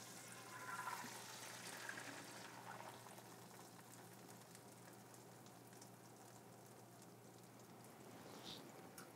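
Faint sizzling and pouring as pancake batter runs from a blender jar into a hot glass baking dish of melted butter. It is a little louder in the first few seconds and then fades, over a low steady hum.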